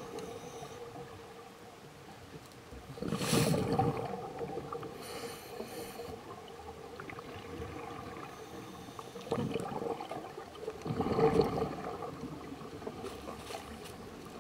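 Scuba diver breathing through a regulator underwater, with loud gurgling bursts of exhaled bubbles about three seconds in, again near ten seconds and around eleven seconds, and a quieter hiss and a faint steady hum between.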